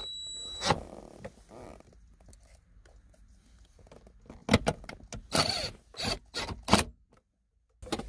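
Screwdriver work on the plastic centre console trim: a high steady whine stops with a click under a second in, then after a pause comes a quick run of sharp clacks and knocks of the tool against the plastic, lasting about two seconds.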